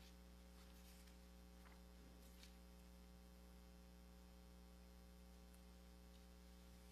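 Near silence: room tone with a steady low hum and a couple of faint brief rustles.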